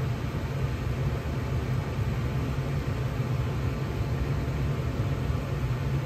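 Gas furnace running with its burners lit and the blower fan on, a steady rush of air over a low, even hum.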